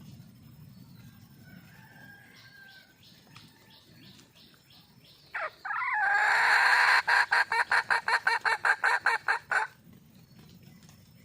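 Wild junglefowl hen calling for a mate: a few faint clucks, then a loud cackle. It is a sustained note that breaks into rapid pulses, about four a second, for nearly three seconds.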